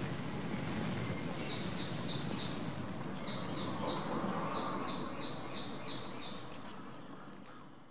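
A small bird calling in runs of short, high chirps, about three a second, over steady background noise. The whole sound fades down near the end.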